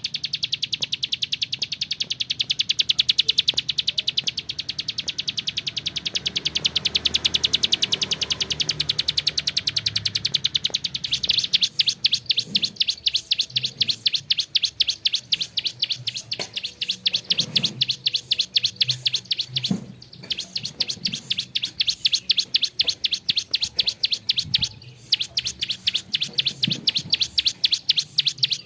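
Plain prinia (ciblek sawah) singing a long, rapid trill of evenly repeated high notes, many per second, that grows stronger about eleven seconds in and breaks off briefly twice near the end.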